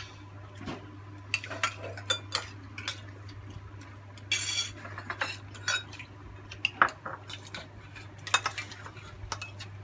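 Spoons and utensils clinking and scraping against dishes and pots in scattered, irregular taps, with one longer scrape about halfway through.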